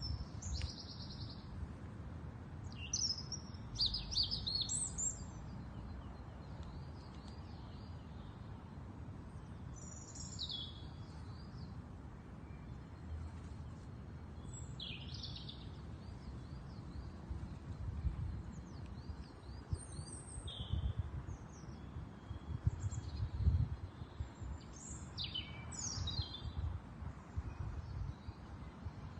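Birds chirping and singing in short, high phrases, with clusters of calls every few seconds, over a low rumble.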